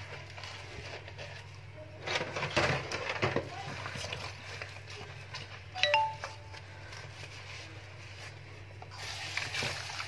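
Drinking glasses being hand-washed in a stainless steel sink of soapy water: sponge scrubbing and splashing, with glass knocking against the sink. One sharp clink about six seconds in rings briefly. A steady low hum sits underneath.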